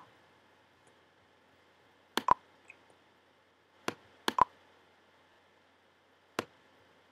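Computer mouse button clicking: about six separate sharp clicks, two of them in quick press-and-release pairs, as a text box is clicked and dragged on screen.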